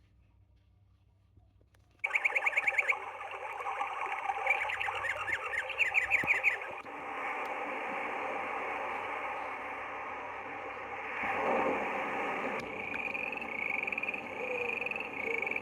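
Timex T138B alarm clock playing a recorded nature-sound track through its small speaker: bird-like chirps over a steady rushing hiss, cutting in suddenly about two seconds in, with a run of short chirps near the end.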